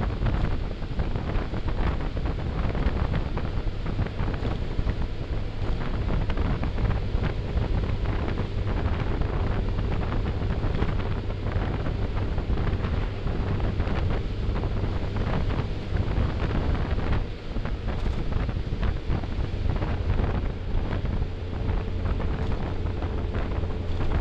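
Wind rushing and buffeting over the microphone of a camera mounted on a moving motorcycle, with the motorcycle engine's steady low drone underneath.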